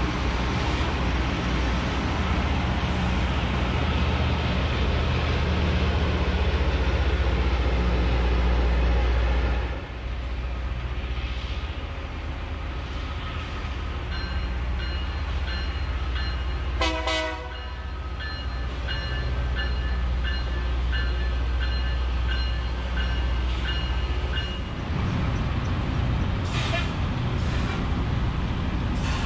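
Loram rail grinder working the rail: a steady low rumble of its machinery with grinding noise that eases off about ten seconds in. In the middle, a steady signal of several high tones sounds for about ten seconds, with a brief stronger blast partway through, and the rumble builds again near the end.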